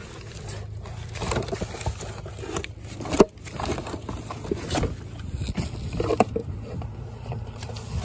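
Hands rummaging through a cardboard box of discarded items: cardboard, plastic and fabric rustling and scraping, with a sharp knock about three seconds in and another about six seconds in.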